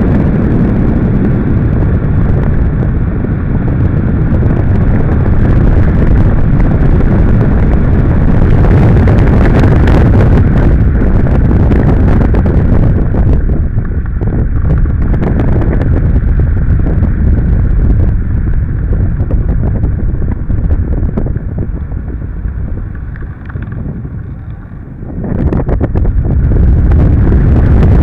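Heavy wind buffeting the microphone of a camera mounted under a hang glider's wing in flight, a loud, deep rush. About three quarters of the way through it eases for a few seconds, then comes back at full strength.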